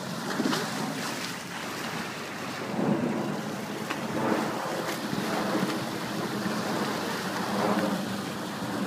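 Water running and splashing into a sea lion pool from a small waterfall, a steady rushing noise, with wind on the microphone.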